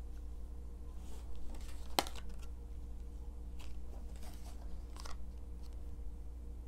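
Tarot cards being handled, turned face up and laid down on a cloth-covered table: soft slides and taps, with a sharp card snap about two seconds in, over a faint steady hum.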